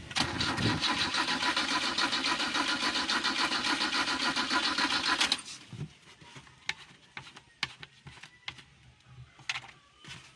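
Car engine cranking on its starter motor with a steady rapid pulse for about five seconds without catching, then stopping suddenly: a hard-starting car.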